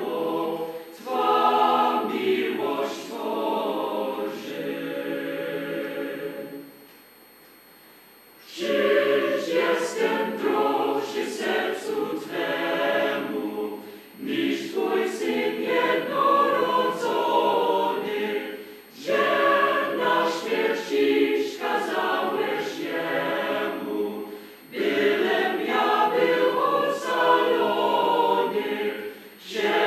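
Choir singing a sacred song a cappella, phrase by phrase, with a short pause of about two seconds some seven seconds in.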